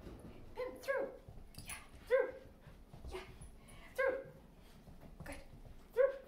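A dog giving about five short, high yips, each dipping slightly in pitch, spaced irregularly, with faint clicks between them.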